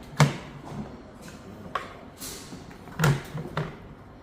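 A few separate knocks and clunks, like a lid, drawer or door being handled, with a brief sliding scrape around the middle.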